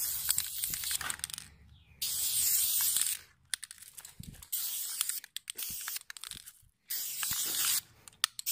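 Aerosol spray paint can spraying in four hissing bursts of about a second each, with short pauses between.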